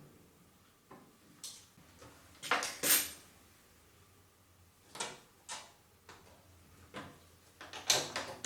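Short scrapes and clicks at irregular intervals from a screwdriver and hands working at a washing machine's door gasket and its wire retaining spring, loudest about three seconds in and near the end.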